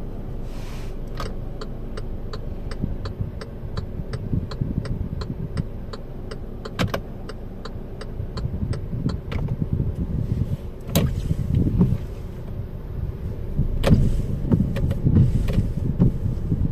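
Kia Stonic's turn-signal indicator ticking at an even pace, about three ticks a second, for roughly the first nine seconds over the steady rumble of the idling engine. A few louder single clicks follow later.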